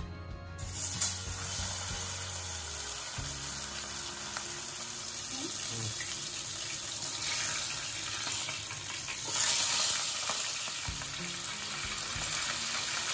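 Whole turmeric-marinated pomfret dropping into hot oil with a sudden loud sizzle about half a second in, then shallow-frying with a steady hiss. The sizzle flares up louder about ten seconds in as the fish is turned over in the oil.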